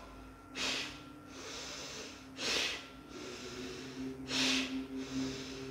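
A person doing slow Bhastrika (bellows) breathing: three forceful breaths through the nose, about two seconds apart, with softer breaths in between.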